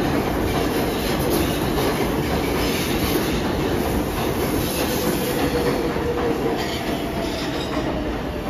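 New York City Subway 4 train running through the station, its wheels clattering and squealing on the rails. A faint whine falls slightly in pitch midway.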